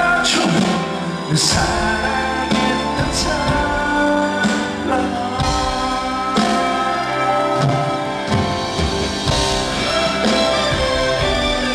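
Male vocalist singing a song live into a microphone, with a live band behind him, heard through the hall's sound system, with held, wavering notes and cymbal strikes.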